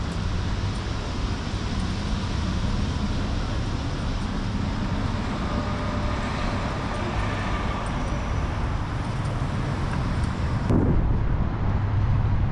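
Road traffic on a city street: a steady rush of passing vehicles over a low engine hum, which gets louder near the end.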